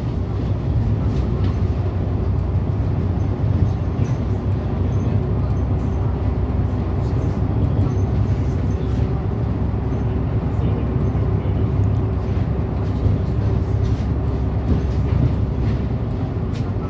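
City bus driving along at steady speed, heard from inside the passenger cabin: a constant low rumble of engine and road noise with a faint steady whine and occasional faint clicks.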